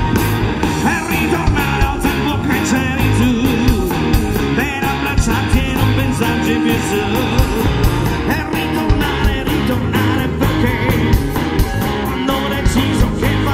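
A live rock band playing through a PA, with electric guitars and drum kit and a woman singing. Heard from among the audience.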